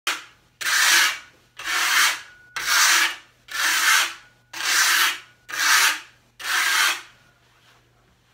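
Gloved hand rubbing a cloth back and forth over a mortar-finished tabletop while working in the top coat: about seven scratchy strokes roughly a second apart, stopping a little after seven seconds.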